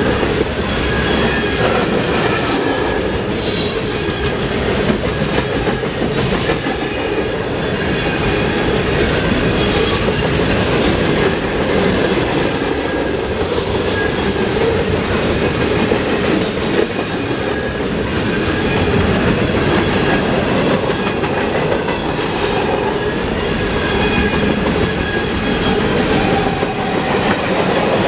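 Freight cars of a long mixed freight train rolling past close by, steel wheels clattering steadily over the rails with a faint high squeal at times.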